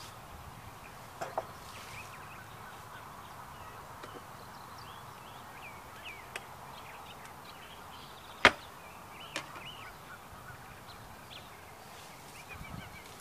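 Hive tool working a wooden beehive: a few sharp knocks and clicks as frames are pried loose, two just over a second in and one much louder crack a little past halfway, with a smaller one just after. Faint bird chirps in the background.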